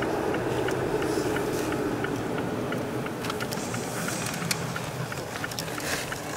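Car driving on a wet road, heard from inside the cabin: a steady tyre and road noise with light ticks scattered through it.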